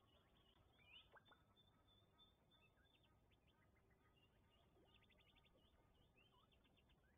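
Faint wild birdsong over a quiet outdoor background: scattered chirps and whistles, with a sharp call about a second in and a quick trill about five seconds in.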